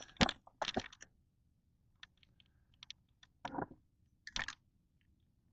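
Scattered light clicks and knocks of a small metal melting furnace being handled and looked over: several in the first second, then two louder knocks about three and a half and four and a half seconds in.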